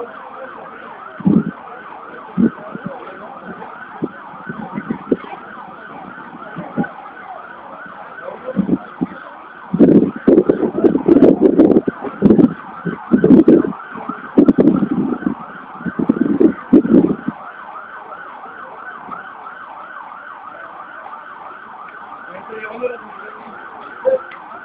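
An emergency vehicle siren sounding a fast yelp, its tone rising and falling several times a second without a break. About ten seconds in, loud irregular bursts of low noise break in over it for roughly seven seconds.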